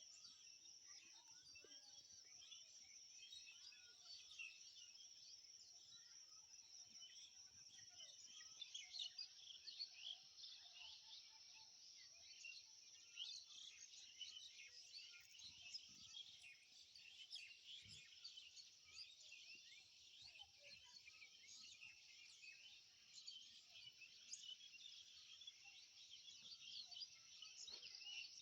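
Faint chorus of many small birds chirping and twittering at once, a dense, unbroken tangle of short high calls, with a steady high trill underneath for the first several seconds.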